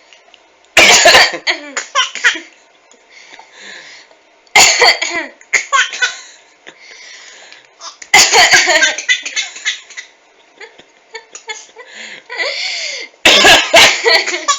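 Someone coughing, four loud coughing bouts a few seconds apart, each answered by short bursts of high-pitched laughter.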